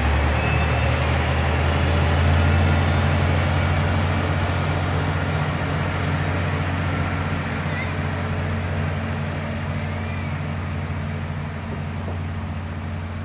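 Diesel engine drone of a two-car KiHa 40/47 diesel railcar, steady and low. It is loudest about two seconds in, then slowly fades as the train runs away along the track.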